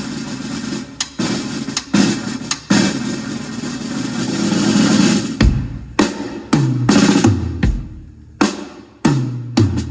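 Music with a heavy drum kit beat: snare and kick hits, and from about halfway through, deep bass notes that slide down in pitch, played loud as a sound-check test track.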